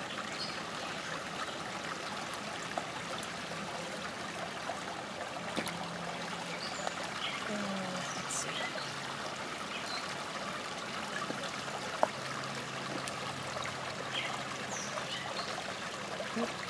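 Shallow, rocky creek trickling steadily over stones, with one sharp click nearly three-quarters of the way through.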